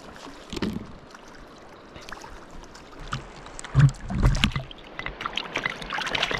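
Water splashing and sloshing with scattered knocks as a hooked smallmouth bass is brought in, with a cluster of heavy low thumps about four seconds in and more splashing near the end.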